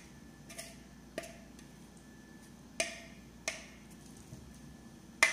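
Plastic mixing bowl knocking against a pressure pan as the cabbage mixture is tipped and shaken out of it: five short, sharp taps at uneven intervals, loudest at about three seconds and near the end.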